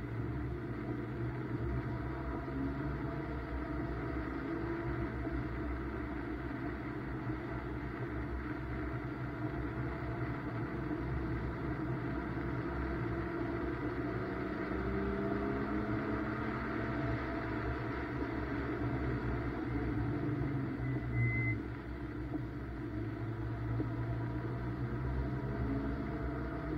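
BMW M2's turbocharged straight-six engine pulling around a wet race track, its pitch rising and falling as the car accelerates and slows, over a steady road and tyre drone. A short high beep sounds about three-quarters of the way through.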